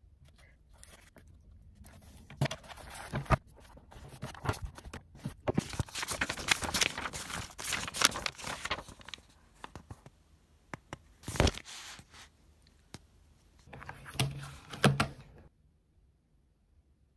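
Paper pages of a notebook being flipped and rustled, with small knocks and clicks of handling on a desk. There is a sharp click about eleven seconds in and a couple of dull knocks near the end.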